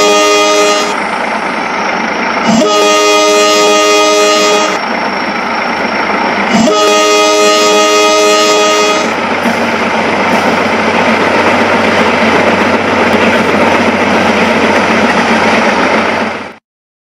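Train horn blowing in long blasts of about two seconds each: one ending about a second in, then two more starting near 2.5 and 6.5 seconds in. After the last blast a steady rushing, whirring noise runs on, then cuts off suddenly just before the end.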